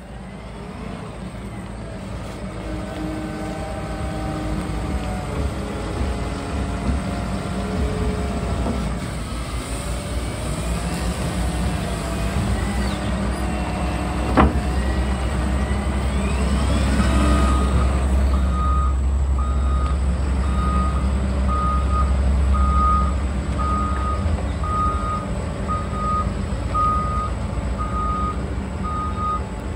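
Caterpillar 950M wheel loader's diesel engine running and pulling hard as the machine drives, with a single sharp click about halfway through. From a little past halfway, its reversing alarm beeps steadily about once a second as it backs up.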